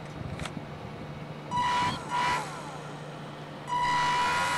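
RC boat's propeller motor, salvaged from an RC plane, whining in three short throttle bursts: two brief ones about a second and a half in, then a longer one near the end, its pitch falling as it winds down after each.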